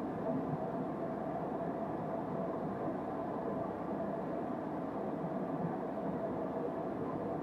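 Steady drone of an airliner's cabin noise, engines and airflow, with a faint steady hum in it and no change throughout.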